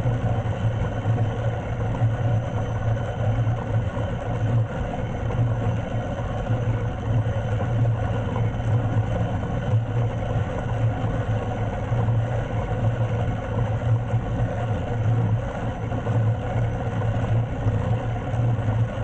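Steady mechanical hum and rumble of a bicycle's wheels rolling along a steel sky-cycling cable, with a strong low drone.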